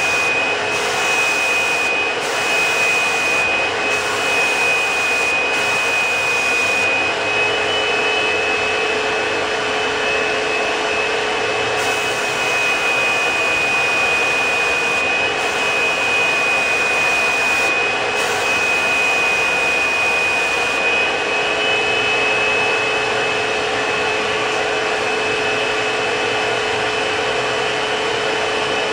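Fuji Semi-PRO 2 HVLP spray system's turbine running steadily, a vacuum-like motor whine with a steady high tone, as it blows air through the hose and spray gun while paint is sprayed.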